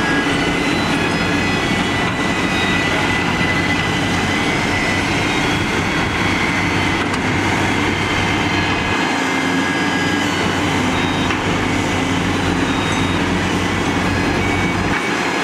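Heavy machinery working: the diesel engines and hydraulics of Hitachi excavators digging and loading soil, with dump trucks idling, make a steady mechanical din with a few held whining tones.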